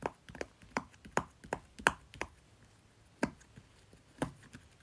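Rainbow-shaped silicone Pop-It fidget toy having its bubbles pushed through one after another by fingers: a string of sharp pops, about two to three a second, with a break of about a second midway.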